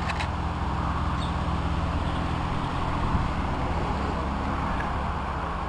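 A steady low engine-like hum under a constant hiss, unchanging throughout.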